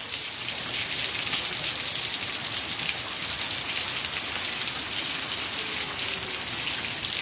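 Rain falling steadily onto a flooded street and its standing water: an even hiss of drops.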